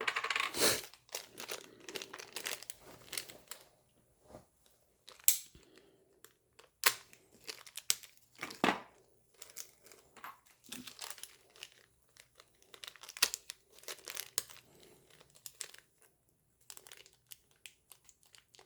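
Plastic packaging crinkling and rustling as it is handled, with scattered sharp clicks and taps at irregular moments.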